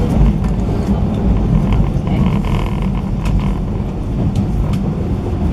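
Running noise inside the motor car of a JR 185 series electric train: a steady low rumble with a few sharp clicks from the wheels and track.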